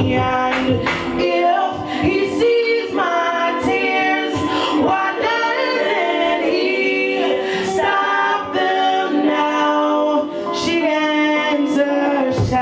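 Live gospel-style song: a female lead voice sings long, held phrases over layered vocal harmonies. The drums and bass drop out about a second in, leaving the voices nearly a cappella, and come back in near the end.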